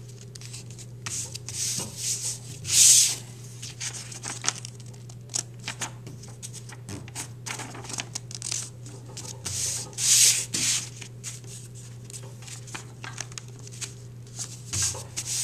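Hands folding wrapping paper over a glued cardboard square and rubbing it flat: a run of dry paper rustles and rubbing strokes, loudest about three seconds in and again about ten seconds in.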